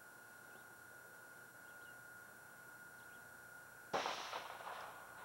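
A single gunshot about four seconds in, ringing out for about a second before fading.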